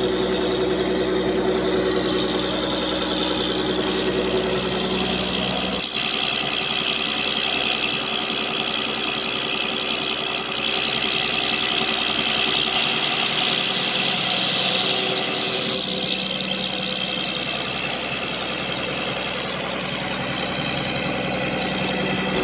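125 kVA Ashok Leyland diesel generator engine running steadily during a load test. Its tone shifts abruptly about 6, 11 and 16 seconds in.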